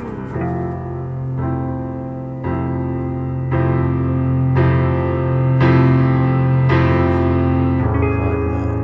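Background music: slow piano chords, a new chord about once a second, over a held low bass note.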